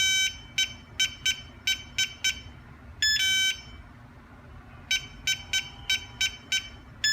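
Electronic keypad locker lock beeping as a password is keyed in. There is one longer beep at the start, then six short key-press beeps about a third of a second apart, a longer beep about three seconds in, and six more key-press beeps near the end.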